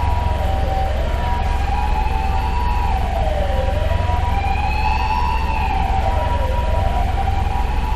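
Emergency vehicle sirens: a slow wail rising and falling about every three seconds, together with a steady two-tone hi-lo siren. Beneath them is a constant low rumble of city traffic.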